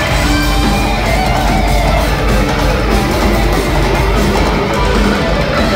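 Rock band playing a loud heavy-metal passage live, with distorted electric guitars over pounding drums and heavy bass, heard from within the crowd in a concert hall.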